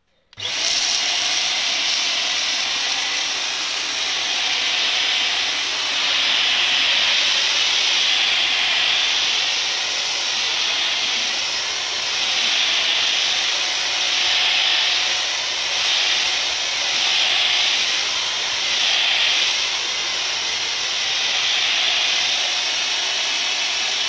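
Kitfort KT-575 upright steam vacuum cleaner starting up about half a second in and running steadily while pushed over a laminate floor, its hiss swelling and easing every couple of seconds. This is its ordinary running noise.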